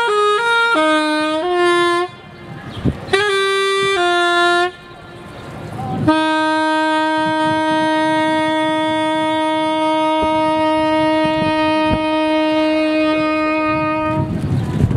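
Soprano saxophone played solo: a quick run of notes, a short pause, another brief phrase, then one long held note of about eight seconds that cuts off near the end.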